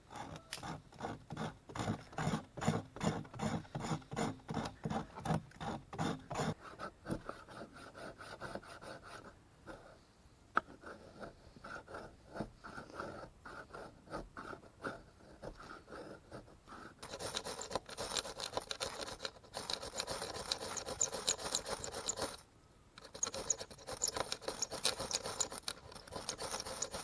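Tinder and kindling being worked to light a campfire: rapid, repeated scraping strokes for about six seconds, then, after a quieter stretch, a dense crackling, scratching noise that breaks off briefly and resumes as the fire catches.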